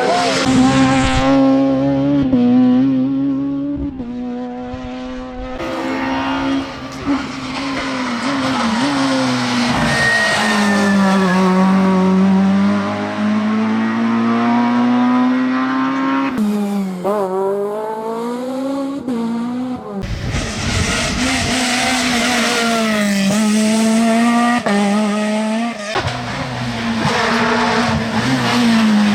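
F2000 rally cars' high-revving naturally aspirated engines at full throttle on a rally stage, one car after another. Engine pitch climbs and drops with gear changes and braking as each car passes.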